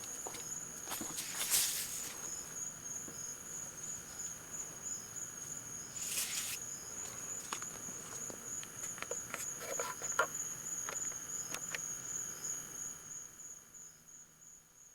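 Crickets trilling steadily at a high pitch, with scattered clicks and two brief rustles; the sound fades out near the end.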